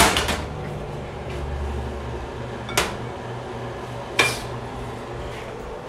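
Kitchen dishes clattering as they are handled and set down: a sharp clack with two quick follow-ups at the start, then single clacks about three and four seconds in, over a low steady hum.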